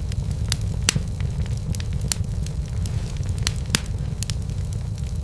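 Wood fire burning with a steady low rumble and scattered sharp crackles and pops, the loudest about a second in and again near the end.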